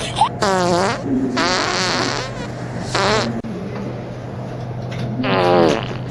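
Fart noises: four separate buzzy, wavering blasts, the second one long and the last one the loudest.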